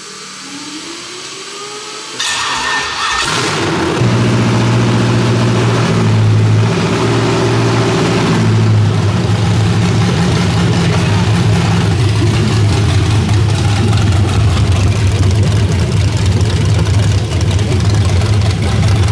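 A freshly built LS V8 on an engine run stand starting for the first time. After a rising whine for about two seconds, it cranks and fires about two to three seconds in, revs a little, and settles into a steady idle through open long-tube headers.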